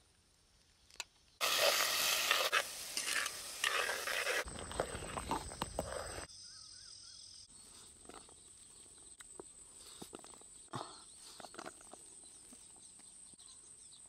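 Loud, even sizzling for about five seconds, beginning after a second and a half of near silence: food frying in hot oil. It stops suddenly, leaving a faint steady high tone and a few small faint clicks.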